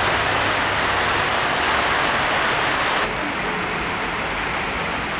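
Steady rain falling, an even hiss. About three seconds in, it turns quieter and duller.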